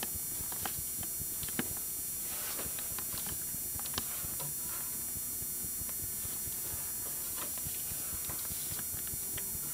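Steady hiss and hum of an old camcorder recording, with a few sharp clicks and faint rustles as paper backstage passes are handled on a wooden shelf.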